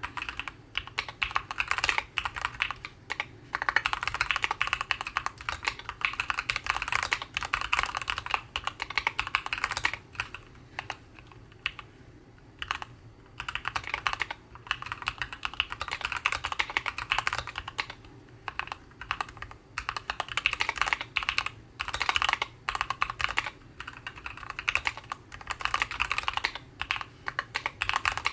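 Keychron Q11 keyboard with Gateron Oilking linear switches and ABS single-shot keycaps being typed on in fast runs of keystrokes, with a few brief lulls. It has fairly loud bottom-out clacks and a light, brisk 'kotokoto' clatter.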